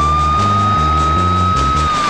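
Police car siren wailing: a single tone that has just swept up, holds steady, then begins to fall away near the end. Background film music with a deep bass line stepping between notes runs under it.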